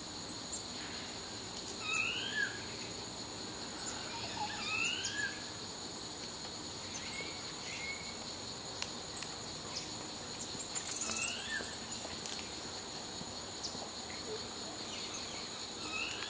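Steady high-pitched insect drone, with a bird now and then giving short rising whistled calls.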